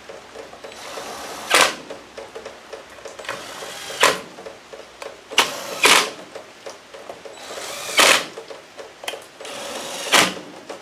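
Small DeWalt cordless driver running screws down into an aluminium oil pump cover in several short bursts, each ending in a sharp click, about six in all.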